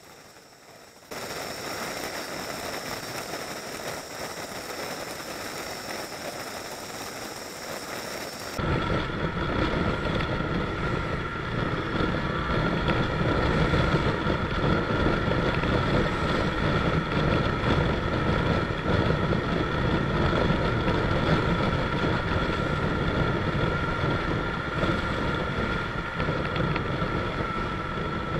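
Motorcycle riding through traffic: engine running under wind rushing over the microphone, with a thin steady tone above. The noise jumps up suddenly about a second in, and again, louder and fuller, about eight and a half seconds in.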